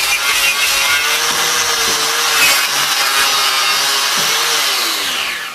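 Hand-held electric power tool running steadily at speed, then switched off and winding down just before the end.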